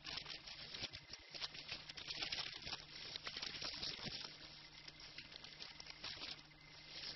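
Dense crackling hiss with many small clicks over a low steady hum, loudest around the middle.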